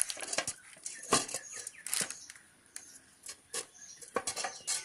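Non-stick cookware and its glass lid being handled: a series of light knocks, clinks and scrapes, the strongest about one and two seconds in, with a quick cluster near the end.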